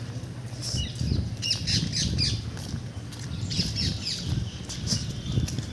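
Many birds squawking and chirping together in the trees, short overlapping calls, over a low rumble.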